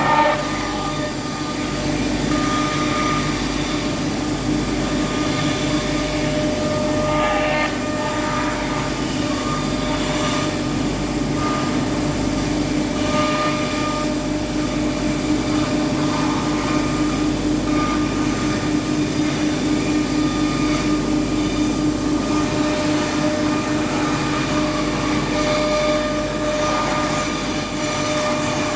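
iM Smart REU2030 CNC router milling a balsa wood plate: the spindle runs with a steady whine over the noise of the cutter in the wood, with some higher tones coming and going as the machine moves.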